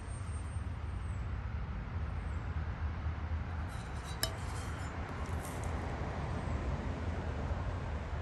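Steady low outdoor rumble with a few faint high tones near the start, and one sharp clink about four seconds in.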